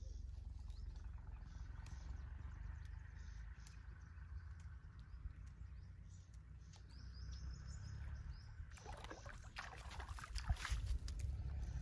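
A small hooked fish splashing at the water's surface for a couple of seconds, about nine seconds in, as it is pulled to the bank on a handline. A steady low rumble and bird chirps run underneath.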